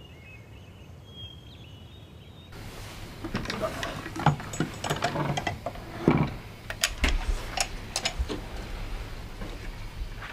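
A few faint bird chirps, then about two and a half seconds in a run of sharp clicks and knocks: a wooden instrument case and the surveying instrument inside it being opened and handled.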